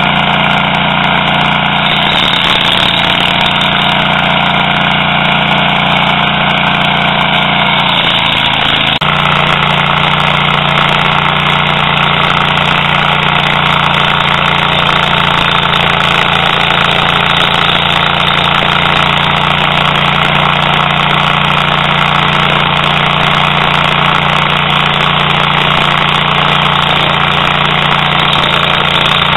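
Toro STX-26 stump grinder's petrol engine running loud and steady. About nine seconds in, the sound shifts to a rougher, noisier running that holds for the rest of the time.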